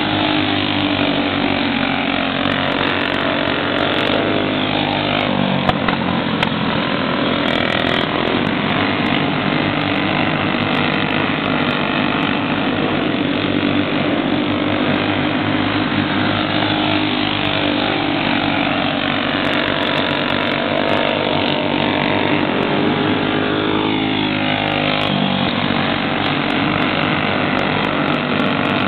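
Several small racing kart engines running hard together as the karts lap the track, with the buzz rising and falling in pitch as karts pass the microphone.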